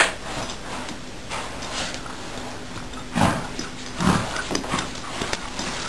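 Scratching, rustling and small clicks as a cat scrambles and tumbles inside a fabric pet bed, with two louder thumps about three and four seconds in.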